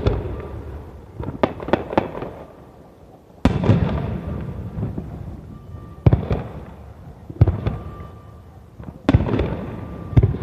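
Aerial firework shells bursting in sequence: about seven deep booms a second or two apart, each trailing off in a long rumble, with a quick run of sharper cracks after the first boom.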